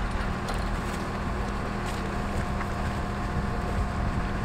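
A motor running steadily, a constant low hum and rumble with outdoor background noise.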